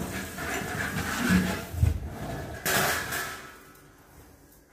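Tap water running and splashing over a large metal serving tray being rinsed in a sink, with a knock of the tray about two seconds in; the splashing dies away in the last second or so.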